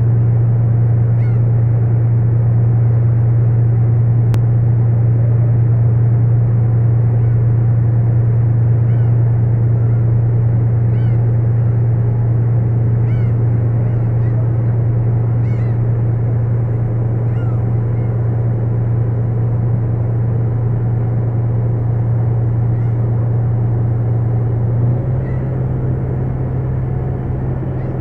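Steady low drone of a crab boat's engine under way, changing in tone about 25 seconds in, with gulls calling again and again over the first two-thirds.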